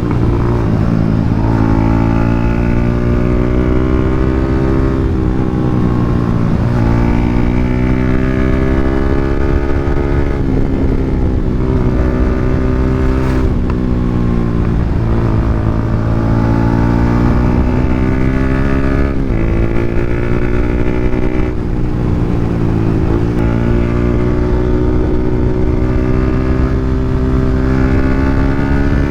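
Yamaha Sniper 150's single-cylinder four-stroke engine running loud through an open EXOS R6 exhaust pipe with no silencer. Its note climbs slowly and dips sharply every few seconds, as it is ridden through the gears.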